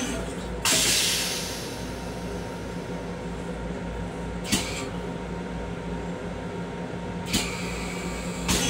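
Steady hum and rumble of a Long Island Rail Road M7 electric railcar running, heard inside its restroom. About a second in comes a short hiss that fades away, and two brief knocks follow later.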